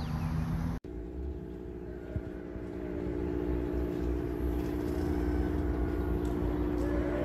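A motor hum running steadily, changing character at a sudden cut a little under a second in. A few short rising-and-falling calls sound over it.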